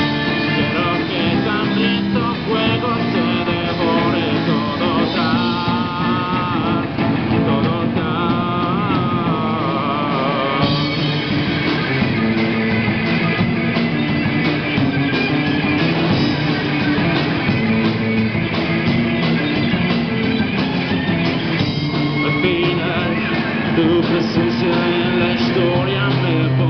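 A live rock band playing through amplifiers: electric guitars and a drum kit at a steady loud level, with a man singing into a microphone.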